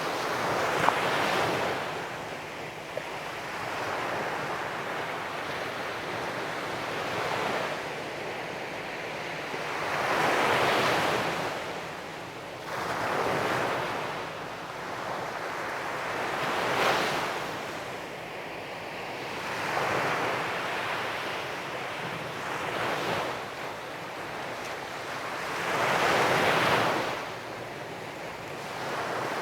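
Sea waves breaking and washing up a sandy beach, the surf swelling and falling back every few seconds. The biggest breaks come about a second in, around the middle and near the end.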